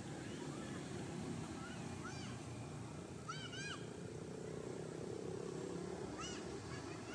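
Short high animal calls, each rising and then falling in pitch, heard singly and in pairs a few times, the loudest pair about halfway through, over a steady low rumble.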